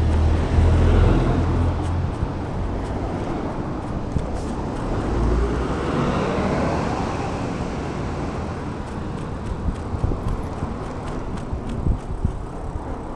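Road traffic on a city street heard from a moving bicycle: cars passing with a steady hum of traffic and a low rumble in the first couple of seconds. About halfway through, one vehicle's engine rises in pitch as it speeds up.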